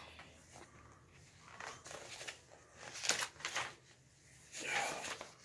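Pages of a picture book being turned, a few brief paper rustles and handling noises.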